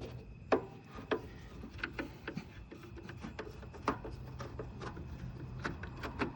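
Irregular clicks, taps and scraping from hands working on a window air conditioner's metal case and chassis, over a faint steady low hum.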